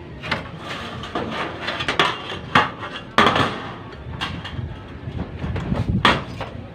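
Irregular sharp knocks and clanks of hand work on metal parts, about half a dozen of them, with a short rasping scrape just after three seconds in.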